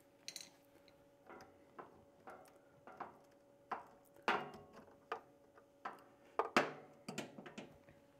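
Small plastic clicks and knocks as a green pluggable screw-terminal block is rocked and pulled off its header on a CO2 laser's controller board. About a dozen irregular clicks, the loudest a little past the middle.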